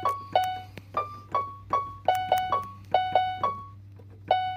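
A First Act electronic keyboard played one finger at a time: a slow, simple melody of about a dozen short, quickly fading notes. It pauses briefly and then plays one more note near the end, over a faint steady low hum.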